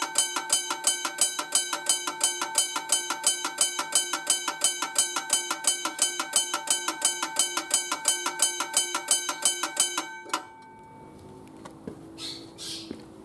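Railway crossing bell ringing with rapid, evenly spaced strikes, stopping suddenly about ten seconds in; after that, faint background and two short hissy sounds near the end.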